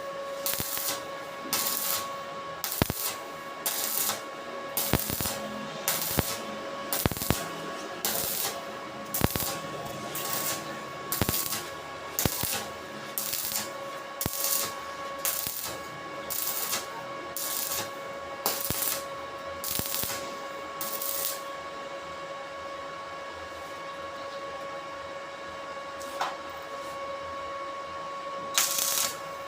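Rhythmic scraping strokes, about two a second, over a steady hum. The strokes stop about two-thirds of the way through and start again near the end.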